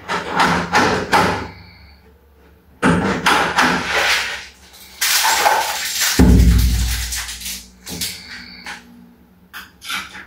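Knocking and tapping on a wooden door and its lock hardware while a lock is being fitted, with a heavy low thump about six seconds in and light metallic clicks near the end.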